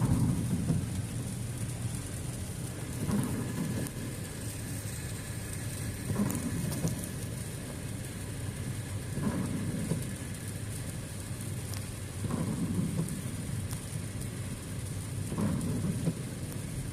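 Rain pattering on a car driving on a wet road, over a steady low road rumble, with a swish about every three seconds as the windshield wipers sweep.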